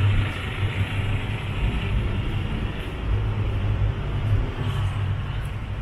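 Street traffic: a motor vehicle's engine running close by as a steady low hum, over general city street noise.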